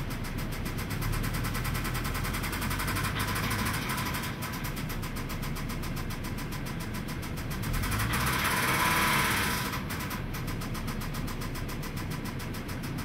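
2003 Mazda 6's 2.3-litre four-cylinder engine running with a fast, steady knock, which is the fault being shown. The sound swells louder for a couple of seconds about eight seconds in.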